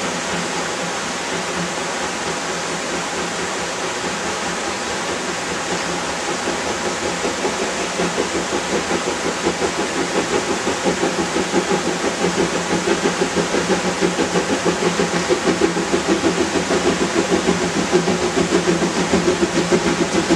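A rushing stream, with the exhaust beats of an approaching narrow-gauge steam locomotive hauling a goods train rising over it; the beats grow louder and more distinct from about halfway through.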